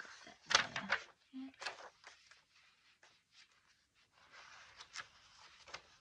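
Magazine-paper pages of a junk journal being turned by hand: crisp paper rustles and flicks, loudest about half a second in, with softer shuffling near the end.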